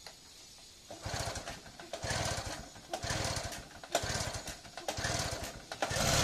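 Small two-stroke generator engine running on biogas being pull-started: the recoil starter is pulled five times about a second apart, each pull cranking the engine over briefly. About six seconds in, it catches and settles into steady running.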